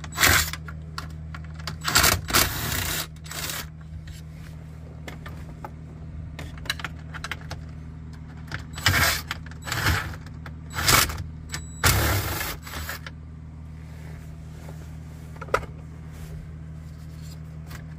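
Cordless 12V drill/driver backing out a 10 mm bolt from the dash trim in several short bursts, with metallic clinking, over a steady low hum.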